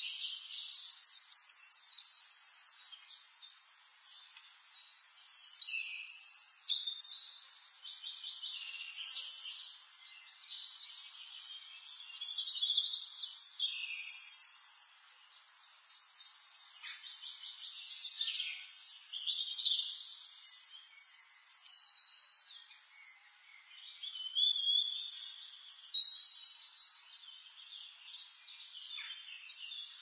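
Several songbirds singing, with high-pitched overlapping phrases and rapid trills swelling and fading every few seconds over a faint steady hiss.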